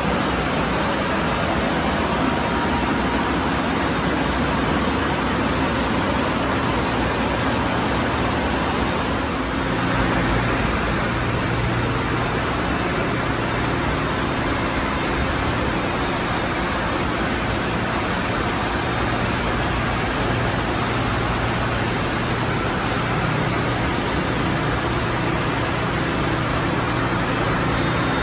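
Steady din of a ship's engine room: running machinery with a low hum under a wash of noise. The low hum shifts slightly about ten seconds in.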